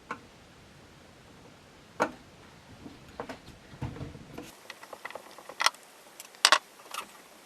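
Scattered light clicks and taps of a screwdriver and screw on the Roland Fantom XR's case as a side screw is taken out, with a sharper click about two seconds in and a quick run of clicks near the end.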